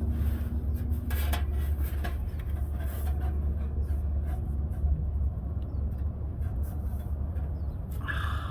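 Steady low rumble, with light clicks and taps in the first three seconds from hands and tools working at the truck's mechanical fuel pump. A brief higher sound comes near the end.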